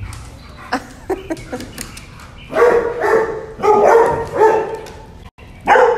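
A dog barking: about four loud, drawn-out barks in the second half, after a few light clicks.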